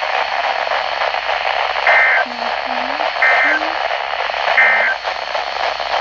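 Weather radio receiver sounding the Emergency Alert System end-of-message data: three short, identical bursts of two-tone digital warble about a second and a half apart, over steady radio hiss. The bursts mark the end of the required weekly test broadcast.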